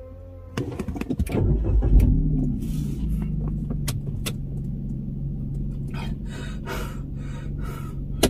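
Car engine starting: a short crank about half a second in, catching with a rev about two seconds in, then settling into a steady idle. A few sharp clicks sound over the idle.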